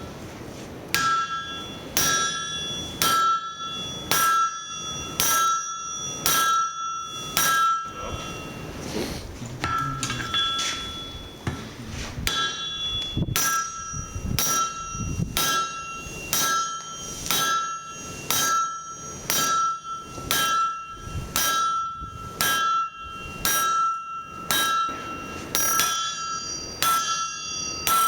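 Forging hammer blows on hot steel over an anvil, about one a second, each ringing with a clear high anvil tone. There is a short break of a few seconds about a third of the way through.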